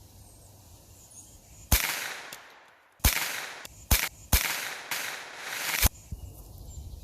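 About five suppressed 9mm shots, Norma 115-grain rounds fired through a Rugged Obsidian 9 suppressor, roughly a second apart, each with a trailing echo.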